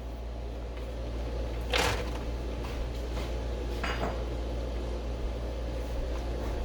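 Kitchen handling noises: two brief clatters of dishes or utensils, the first about two seconds in and the louder, the second about four seconds in, over a steady low hum.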